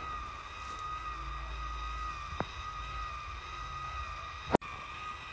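Automatic rotating hair curler's motor whining steadily, a lock of hair wound in its barrel. There is a sharp click near the end.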